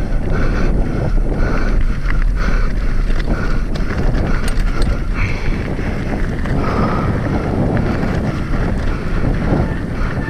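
Wind buffeting the microphone at speed, over a steady rush with many small clicks and clatters of a hardtail mountain bike rolling over rocks and loose ground.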